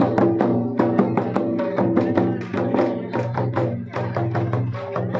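Hand-played barrel drums beating a fast, steady dance rhythm, with a sustained melodic line and crowd voices underneath.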